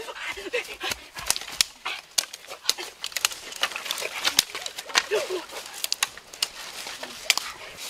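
Dry sticks snapped by hand for firewood: a run of sharp, irregular cracks and snaps.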